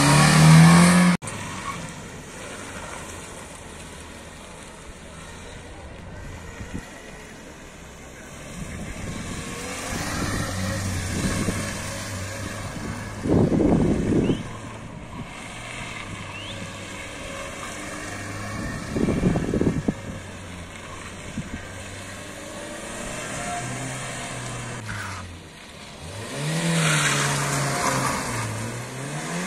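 Renault 5 hatchback's engine revving up and down as it is driven hard around a slalom of cones, rising loud as it passes close near the end. A loud engine rev at the start cuts off abruptly about a second in.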